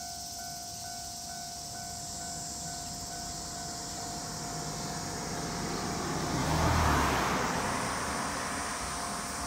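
A vehicle passing close by out of view, its noise swelling to a peak about seven seconds in and then fading, over a steady thin high tone.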